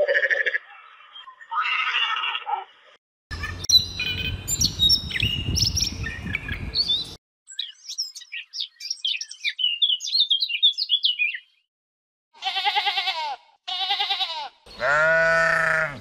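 A run of different animal calls: quick, high chirps through the middle, then three bleating calls near the end, the last one the longest.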